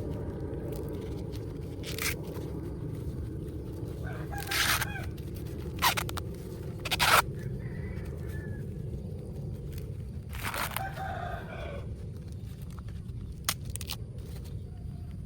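Chicken calling twice, short pitched calls about four and ten seconds in, over a steady low background rumble, with a few sharp knocks, the loudest a little past the middle.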